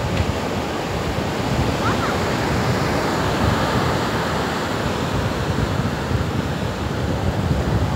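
Ocean surf breaking and washing up the sand, a steady rushing, with wind buffeting the microphone.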